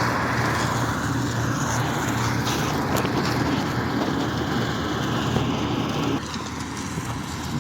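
Combine harvester running steadily, a continuous engine hum with machinery noise, dropping somewhat in loudness about six seconds in.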